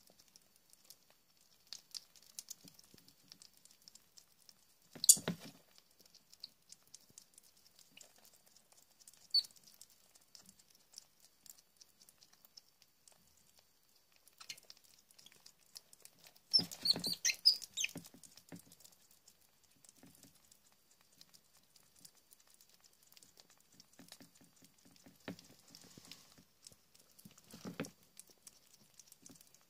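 Least weasel kits feeding on raw meat from a plastic tray: scattered soft clicks, smacking and scrabbling, with a sharp louder knock about five seconds in and a louder scuffle over the meat around the middle that carries brief high-pitched squeaks, then more scuffling near the end.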